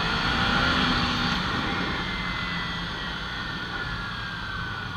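Kawasaki Ninja 300 motorcycle's parallel-twin engine running under way, with road and wind noise. Its whine falls slowly in pitch and the sound eases off as the bike slows.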